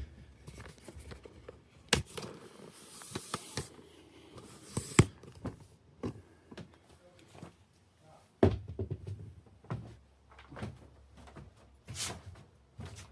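Scattered knocks and clunks of things being handled, like a door or panel opened and closed, with sharp ones about two, five, eight and a half and twelve seconds in and rustling between them.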